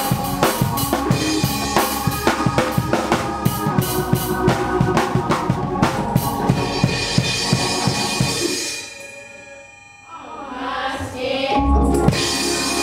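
Drum kit played with fast, dense snare and bass-drum strokes and cymbals. The playing falls away about nine seconds in, then builds back up with a deep low hit near the end.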